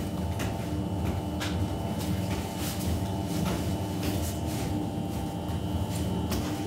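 Steady machine hum of a working bakery, with soft irregular taps and slaps of hands pressing and patting dough flat on a bran-dusted wooden bench.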